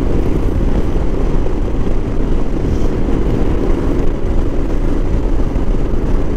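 Motorcycle engine running steadily on the move, heard from the bike itself with heavy wind and road rumble on the microphone.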